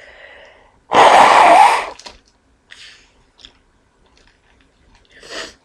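A single loud human sneeze about a second in, lasting about a second, after a faint intake of breath. A couple of short, quieter breaths follow.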